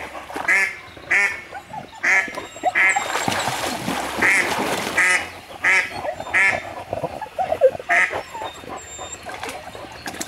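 Ducks quacking: a series of short quacks about every half second, in runs with brief pauses.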